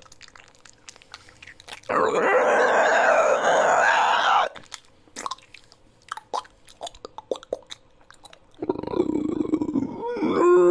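Creature sound effects: scattered sharp clicks, then a loud rasping growl lasting about two and a half seconds, more clicking, and a second rasping growl starting near the end.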